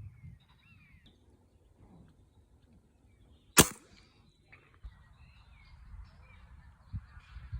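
A single sharp shot from a break-barrel air rifle firing, about halfway through, the loudest thing by far.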